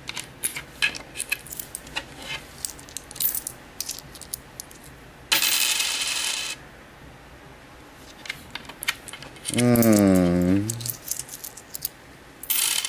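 Aluminium one-yen coins clicking and clinking as they are picked up and dropped onto a desk by hand, with a clattering rattle lasting about a second, about five seconds in, and another near the end. About ten seconds in, a man gives a short wordless vocal sound that dips and then rises in pitch.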